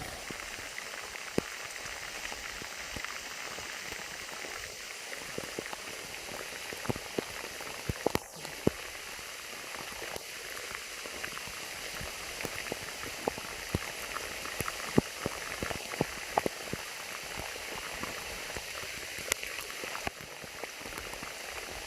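Heavy rain falling steadily, with many sharp, irregular drop impacts close by.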